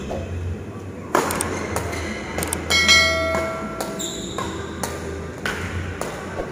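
Badminton rackets hitting a shuttlecock, with sharp hits every second or so that echo in a large hall. A bright chime rings out about three seconds in, and a higher ding follows a second later, from a subscribe-button sound effect.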